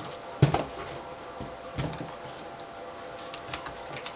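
Handling knocks from a metal-framed LCD panel being picked up and turned over on a workbench: a firm knock about half a second in, another near two seconds, then lighter taps. A faint steady hum lies underneath.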